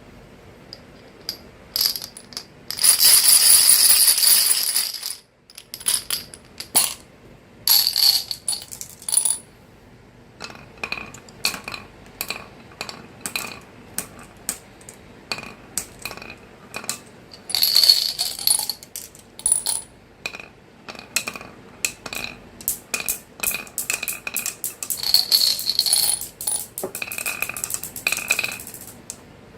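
Marbles clicking and clacking as they roll and drop along a marble-run track, in dozens of quick, ringing knocks. A dense rattling rush of many marbles together comes about three seconds in and lasts about two seconds.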